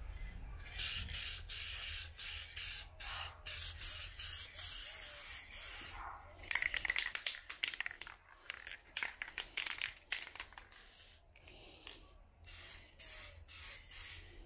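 Aerosol can of trim paint sprayed in many short bursts of hiss, each a second or less. The spray tip is faulty and shoots uneven streams instead of an even mist.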